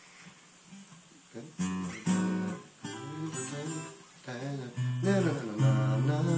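Acoustic guitar playing a melodic lead passage of plucked single notes and short chords, starting about a second and a half in after a brief pause. Some notes glide up and down in pitch, as with string bends.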